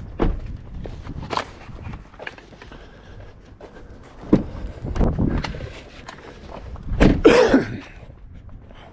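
Footsteps with scattered thuds and knocks, and a short, louder sound with a wavering pitch about seven seconds in.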